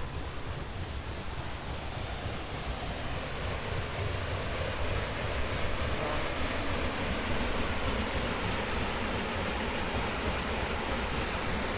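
Steady rush of flowing spring water, growing slowly louder.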